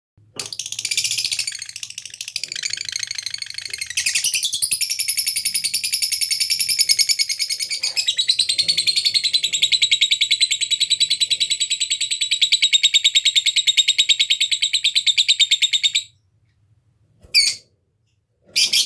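Lovebird giving a long ngekek: a very fast, rattling high-pitched chatter held for about fifteen seconds that stops suddenly, followed by two short calls near the end.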